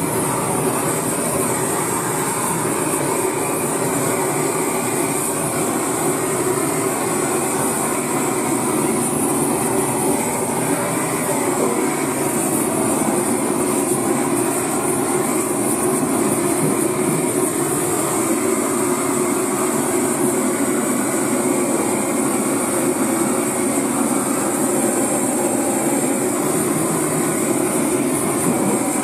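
Handheld gas blowtorch burning with a steady, unbroken rushing hiss as its flame singes goat feet.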